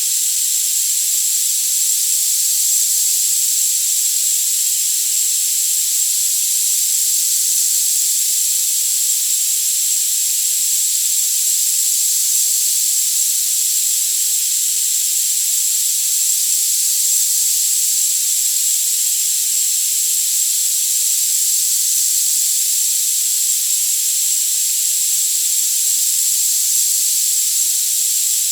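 Synthetic tinnitus-therapy sound: a steady high-pitched hiss with no low or middle range, and a constant very high tone running through it, unchanging throughout.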